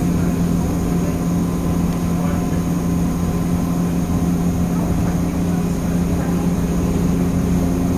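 Drachenfelsbahn electric rack railway car running downhill, heard from inside the passenger compartment: a steady hum at a constant pitch from the drive and rack gearing over a low rumble from the wheels on the track.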